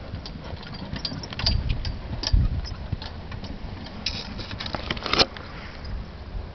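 A horse's hoofbeats on a sand arena and the rattle of the light two-wheeled cart it pulls, heard as irregular clicks and knocks over a low rumble as the rig moves away. The sharpest rattles come about two and five seconds in.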